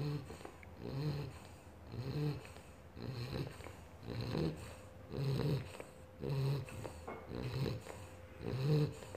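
A three-month-old British bulldog puppy snoring in its sleep: a buzzing, rasping snore on roughly every second breath sound, about one a second, rising and falling steadily.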